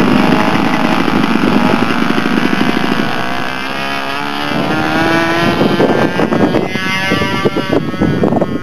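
Small piston engine of a radio-controlled model airplane running at high revs, its pitch climbing steadily for a couple of seconds midway through as it speeds up.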